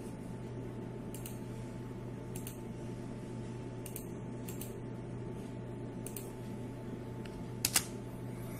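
A few scattered computer key clicks over a steady low electrical hum, with a sharper double click near the end.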